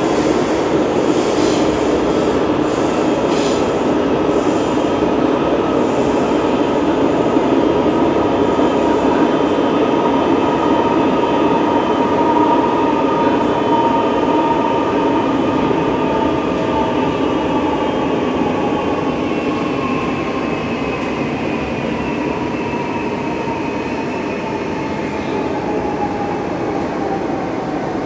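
Renfe series 446 electric multiple unit running, a steady rumble of wheels and rails with a high traction whine whose pitch slowly falls through the second half.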